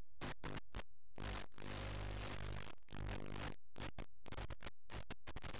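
Steady electrical hiss over a low buzzing hum, the noise of an analog FPV video link's recorded audio. It cuts out to near silence many times in short gaps.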